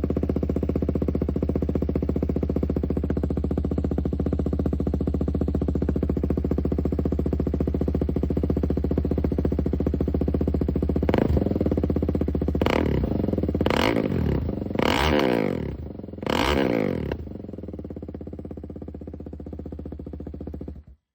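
KTM motorcycle engine with a new aftermarket exhaust, idling loudly just after a cold start, then given about five quick revs, each rising and falling in pitch. It settles back to a quieter idle before the sound cuts off abruptly near the end.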